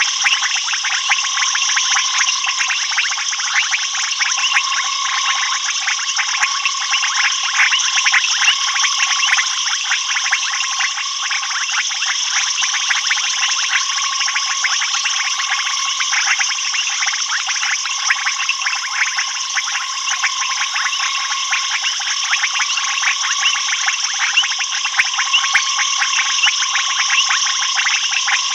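Dense, steady night chorus of frogs and insects: a mass of rapid clicking and trilling calls. A thin, high buzz joins about eight seconds in and drops out a few seconds before the end.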